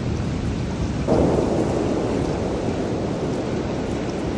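Heavy rain falling steadily, with a low rumble beneath it; about a second in, a sudden louder roll of thunder breaks in and slowly fades.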